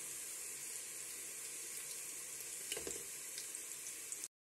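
Hot oil sizzling steadily around sliced onions deep-fried until brown and crisp in a pot, with a couple of light clicks from the metal skimmer working among them. The sizzling cuts off abruptly near the end.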